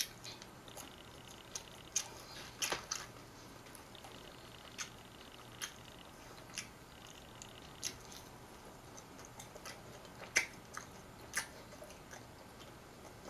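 A person chewing and biting into fried chicken McNuggets: scattered short crunches and mouth smacks at irregular intervals, with a faint steady hum under them.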